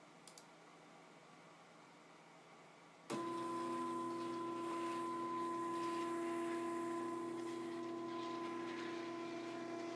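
Motors of a 3D-printed robotic arm start up suddenly about three seconds in and run with a steady, even whine of several tones. Before that there is only a faint hum.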